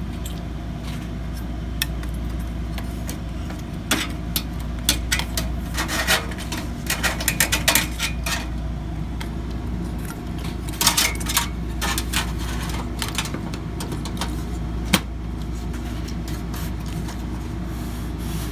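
Clicks, light knocks and scraping of a graphics card and metal parts being handled and fitted into a desktop PC case, over a steady low hum. The clicks come in clusters, with one sharp click near the end.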